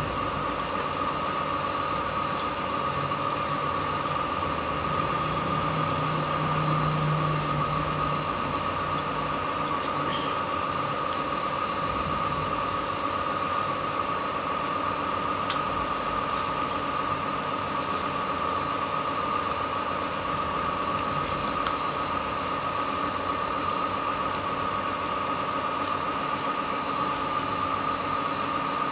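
Steady mechanical hum with a constant high whine, a lower tone joining in for a few seconds about three seconds in.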